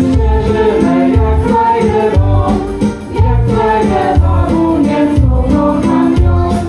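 Music with singing over a steady, repeating bass beat.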